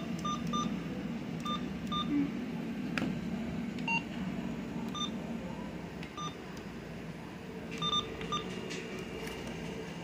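Weather radio receivers giving short electronic beeps: about ten single high beeps in irregular clusters and one lower-pitched beep, over a steady low hum. A faint steady tone comes in near the end.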